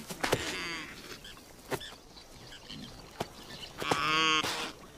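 Male impalas sparring, one giving deep grunting calls: a short one just after the start and a louder, longer one about four seconds in. A few sharp clicks come in between.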